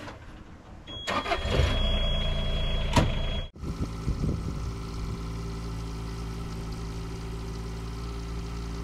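Bobcat mini excavator's diesel engine cranking and starting about a second in, with a steady high beep over it, then idling steadily after an abrupt break about three and a half seconds in.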